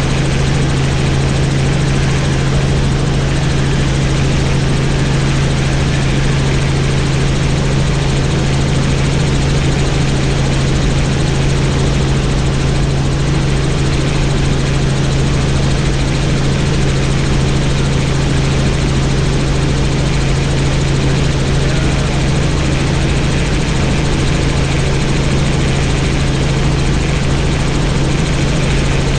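Helicopter in flight: a steady, loud drone of rotor and engine noise with a strong low hum, unchanging throughout.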